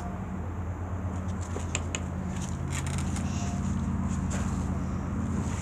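Steady low machine hum, with a few light clicks and taps over it.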